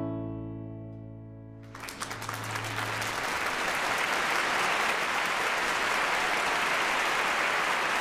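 The final chord of an acoustic band's song rings and fades over the first couple of seconds. Then applause breaks out and carries on steadily.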